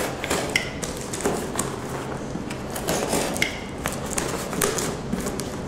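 Box cutter slicing through packing tape on a cardboard shipping box, with a quick run of short scrapes, taps and knocks as the cardboard is handled.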